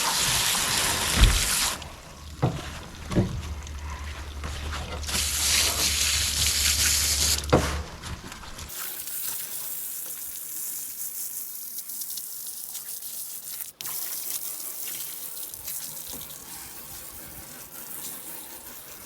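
Running water spraying in two spells, one at the start and one a few seconds later, rinsing scales and slime off a salmon, with a few sharp knocks in between. A fainter hiss of water follows.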